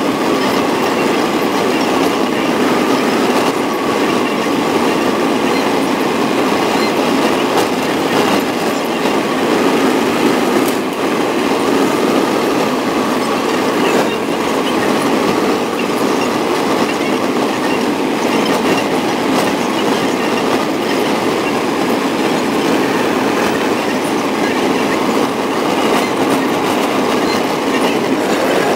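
Steady road and wind noise inside a car cruising at motorway speed.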